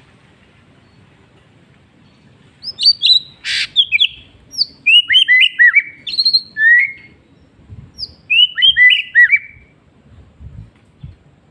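White-rumped shama singing: two loud phrases of rich whistled notes that slide up and down in pitch, the first starting a few seconds in and the second after a short pause.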